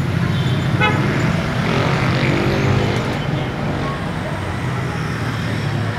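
Street traffic: a steady low engine hum throughout, with a motorcycle and then a car passing, one engine note rising and fading about two to three seconds in. A brief high chirp comes about a second in.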